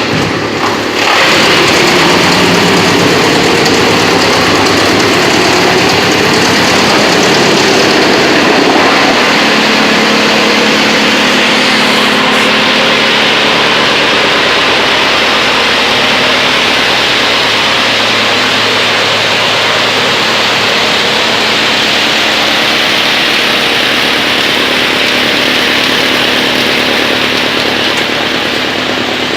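YBX218 wood chipper running on a trial run: loud, steady machine noise that comes up sharply about a second in, with its pitch shifting over the next several seconds before it settles into a steady hum.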